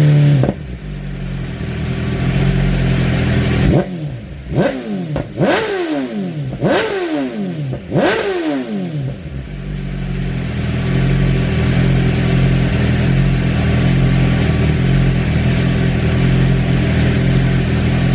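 2023 BMW S1000RR's inline-four engine through an Akrapovič full exhaust: revs falling away at the start, then five quick throttle blips over about four seconds, each dropping straight back, before it settles into a steady idle.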